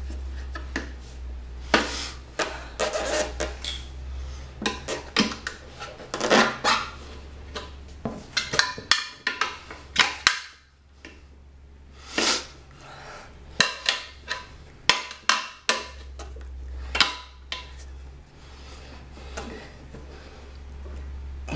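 Metal tire levers clinking and scraping against a motorcycle wheel rim and tire rubber in irregular knocks and clicks, as the tire's bead is pried over the rim edge by hand.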